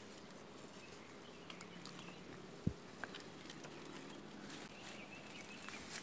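Quiet background with faint bird chirps now and then, and one dull thump a little before the middle, followed shortly by a small click.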